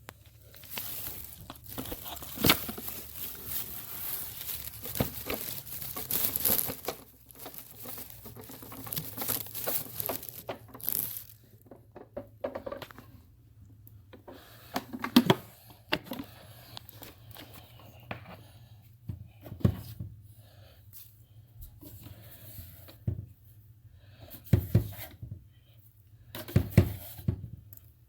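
Crinkling and rustling for about ten seconds as vacuumed debris from a carpet is handled and shown, followed by scattered clicks and knocks.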